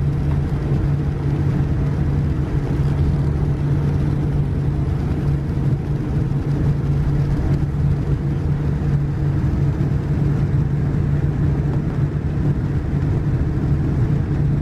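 Boeing 787-9's Rolls-Royce Trent 1000 engines at taxi idle, heard from inside the cabin: a steady rumble with a constant low hum.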